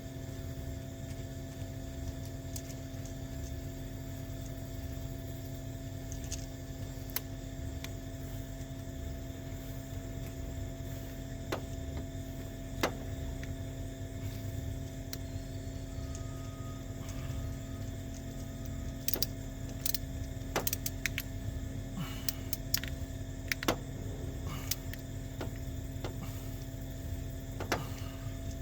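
Scattered sharp clicks and light metallic taps from hand tools working on a car battery cable connector, over a steady low hum. The clicks come closer together in the second half.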